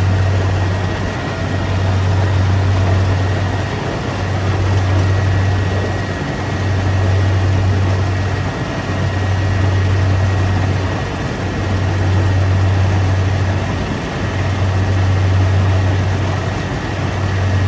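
Rice combine harvester running steadily: a loud low engine hum that dips briefly every two seconds or so, over a wide mechanical noise with a thin steady whine above it.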